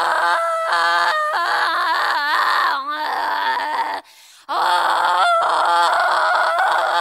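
Solo female voice singing in an avant-garde, extended-vocal style: wavering, cry-like held notes with quick pitch wobbles and sliding yelps. It comes in two long phrases, broken by a short pause about four seconds in.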